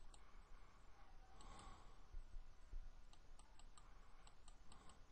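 Near silence broken by faint clicks from a computer mouse, a few at first and then a quick irregular run of them in the second half, as the slide is scrolled.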